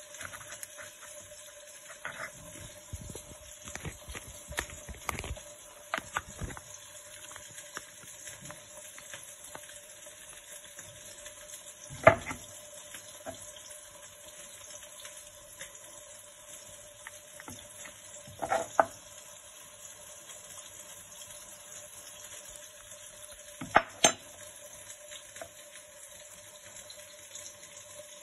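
A steady hiss with a faint hum, under the knocks of bread and hands working on a wooden cutting board. A run of soft knocks comes in the first few seconds, then three sharp knocks about six seconds apart.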